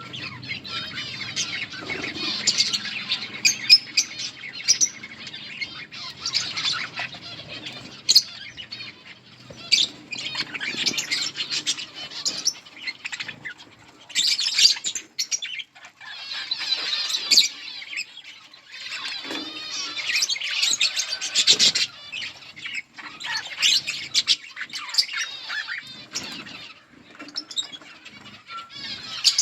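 Pet budgerigars chirping and warbling in bursts of high chatter, with short pauses between the bursts.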